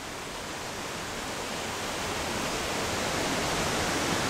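Wind rushing through the bush: a steady noise with no distinct events, building slowly louder.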